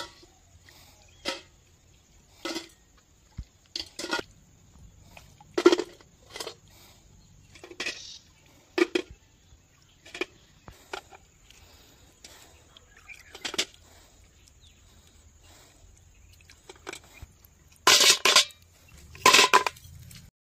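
Snail shells dropped one at a time into a steel bucket, each a short clink against the metal, coming irregularly about once a second. Near the end come two longer, louder rattles of the shells in the bucket.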